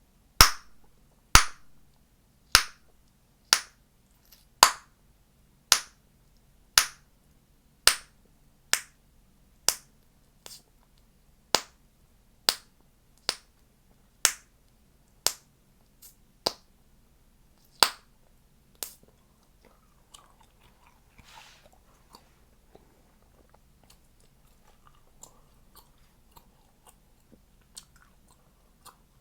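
Chewing gum snapped in the mouth with sharp, loud pops, about one a second for the first two thirds, then softer wet chewing with faint clicks.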